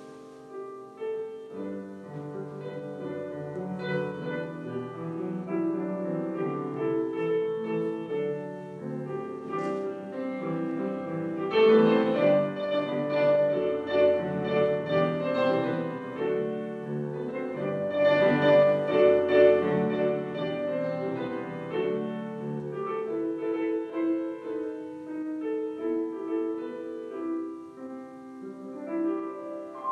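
Solo piano music playing continuously, growing louder twice in the middle.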